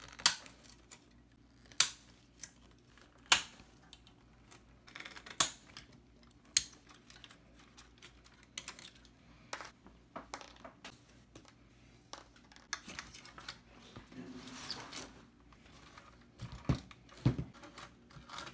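Screwdriver and loose screws clicking and tapping against the steel amplifier chassis and transformer frame as the transformer's mounting screws are loosened and turned out: scattered sharp clicks, a brief rustle, and two heavier knocks near the end.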